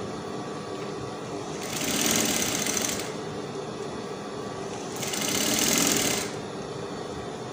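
Industrial straight-stitch sewing machine sewing through organza in two short runs of about a second and a half each, starting about two and five seconds in, with a steady hum between the runs. It is sewing a long basting stitch for gathering the sleeve layers.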